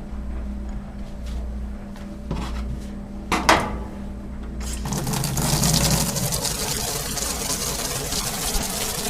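A few sharp clicks over a low steady hum, then about five seconds in a faucet opens and water runs steadily into a utility sink.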